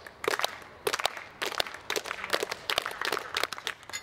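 Hand claps in a quick, irregular series, a few sharp claps a second.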